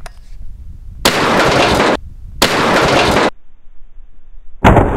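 Two loud bursts of hiss, each just under a second long and cutting in and out abruptly, then near the end a single sharp, very loud shot from a Rock Island Tradition 20-gauge single-shot shotgun firing a slug.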